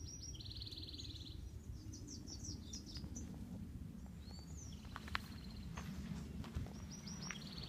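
Songbirds singing along a wooded trail. One bird gives a song of a few quick high notes ending in a buzzy trill about a second long, at the start and again near the end, with other chirps between. It sits over a steady low rumble, with a few sharp clicks in the second half.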